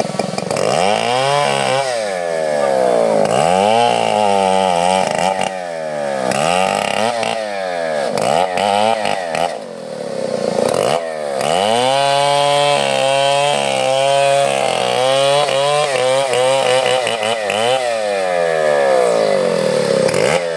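Two-stroke chainsaw running hard, its engine pitch repeatedly dropping and climbing back, about once every second or so, for roughly the first half. After that it holds higher and steadier with only small dips, as the saw works through teak wood.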